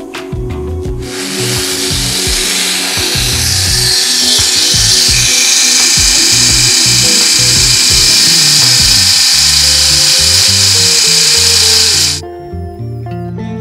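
Small high-speed rotary tool with a grinding bit running and grinding the inside of a die-cast metal toy car body: a loud, steady high whine and hiss that starts about a second in and cuts off suddenly about twelve seconds in.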